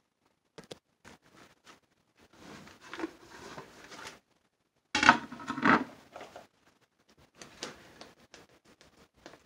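Handling noises at a bowl: a plate used as a lid is lifted off a plastic mixing bowl, with a loud clatter about halfway through as it is set down on the counter, then a spatula scrapes and stirs through the thick, freshly cooked soap in the bowl in a run of short strokes.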